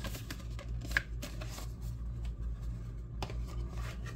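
Trading cards being handled: soft rustling and light clicks of card stock, with a sharper click about a second in and another a little past three seconds.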